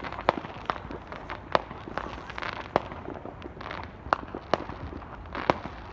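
Fireworks and firecrackers going off in a string of sharp, irregular bangs, about two a second.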